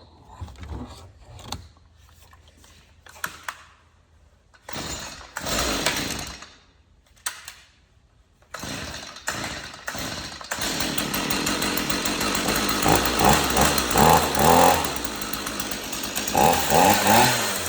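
Stihl MS 162 two-stroke chainsaw being pull-started on choke: a few short bursts of cranking, then the engine catches about halfway through and keeps running. It is revved in short blips near the end, the pitch rising each time.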